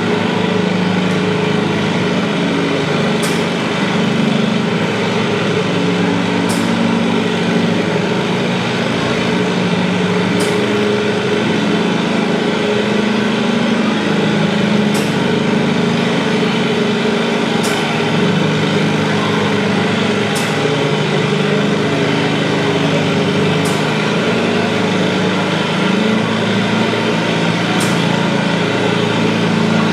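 Antique farm tractor's engine running steadily at low speed, with no revving.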